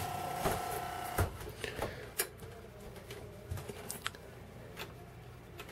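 Sony MHC-ZX30AV mini system's CD changer mechanism running on elastic bands fitted in place of its worn belts: a steady whine that stops about a second in, then scattered light clicks. The tray does not eject, and the owner doubts the makeshift belts will work.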